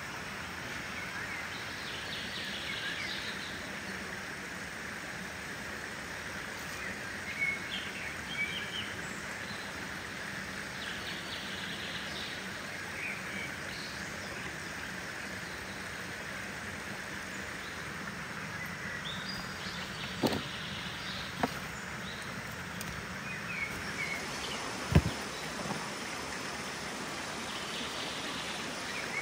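Steady outdoor rushing hiss with birds chirping now and then, and a few sharp snaps about two-thirds of the way through, the loudest a few seconds later, as okra pods are cut off the plants.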